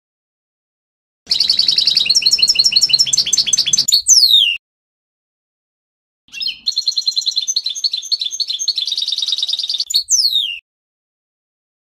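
European goldfinch singing: two phrases of rapid, high twittering notes, each a few seconds long and ending in quick falling whistles, separated by silent gaps.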